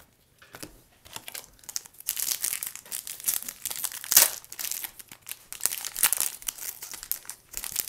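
Foil wrapper of a baseball card pack being torn open and crinkled in the hands, starting about two seconds in, with dense crackling that is loudest about four seconds in.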